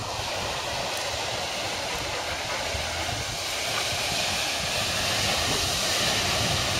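Ocean surf breaking along a rocky beach, a steady rushing hiss that grows slightly louder partway through.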